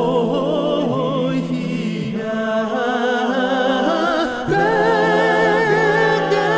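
Several voices singing a slow song in harmony, held notes with vibrato over a steady low part; a new, louder phrase begins about two-thirds of the way in.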